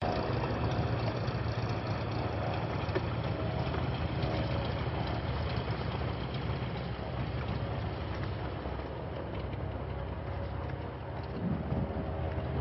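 A steady engine drone with wind noise on the microphone. A faint whine in the drone fades after about eight seconds.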